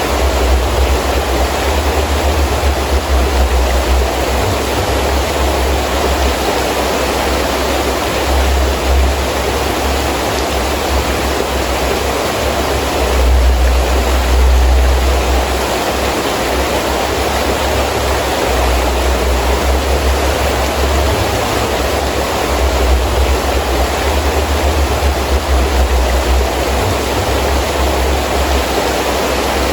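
Heavy rain falling steadily with wind, a deep rumble of gusts rising and falling underneath and swelling about halfway through.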